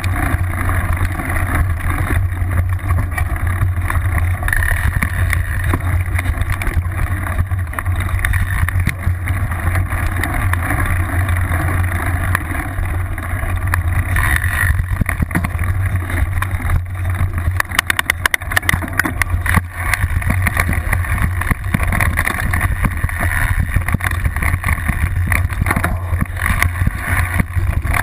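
Mountain bike ridden over a rough dirt trail, heard from a seat-post-mounted camera: a steady rumble of tyre and riding noise with wind on the microphone. About two-thirds of the way through, a run of sharp knocks and rattles as the bike goes over bumps.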